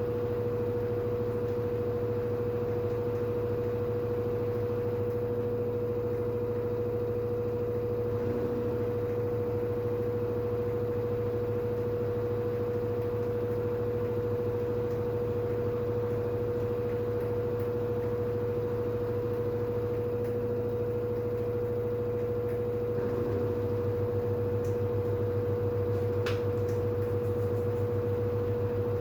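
LG FH4A8TDN2 front-loading washing machine spinning at speed on its 1400 rpm spin cycle: a steady high whine over a low hum. The hum grows a little stronger about three-quarters of the way through.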